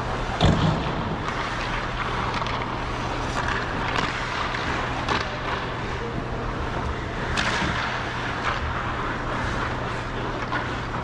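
Ice skates gliding and scraping on rink ice, with a blade stroke every second or so over a steady low hum. A knock about half a second in is the loudest moment.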